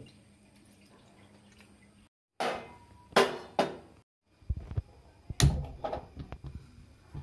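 Stainless steel bowl of water being handled and set down on a gas stove's burner grate: a few loud scrapes and bumps, then low knocks and one sharp metal clank about five and a half seconds in. The sound drops out completely twice.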